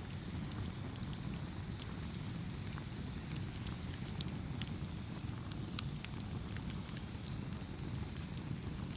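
Campfire crackling: a steady low rumble of burning with frequent sharp pops and snaps scattered throughout.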